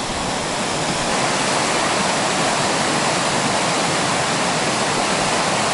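Steady rush of water pouring over a reservoir overflow weir and churning in white water below it.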